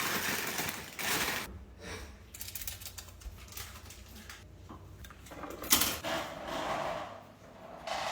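Kitchen clatter of a bowl of cereal being made: a run of rapid small clicks and rattles, like dry cereal pouring into a bowl, with a sharp knock nearly six seconds in.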